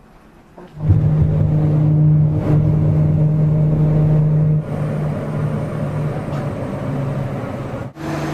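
Airliner engines heard from inside the cabin on the runway: a loud steady hum with a constant low drone and a few steady higher tones, starting suddenly about a second in and stepping down in level at clip cuts.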